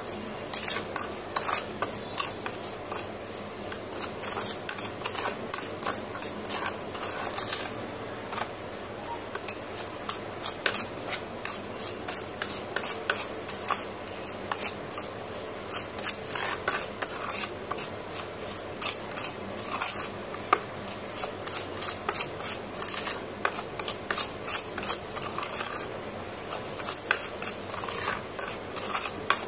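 Metal spoon stirring and mashing thick wet red clay paste in a stainless steel bowl, scraping and clicking against the bowl in quick, irregular strokes.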